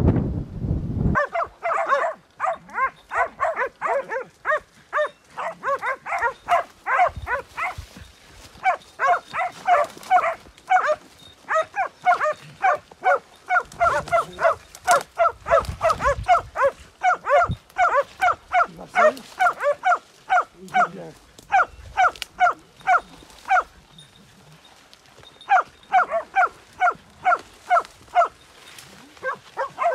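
Hunting hounds barking on the trail of wild boar, giving tongue in quick runs of about four barks a second, with a short break about three-quarters through. Wind rumble on the microphone at the very start, cutting off about a second in.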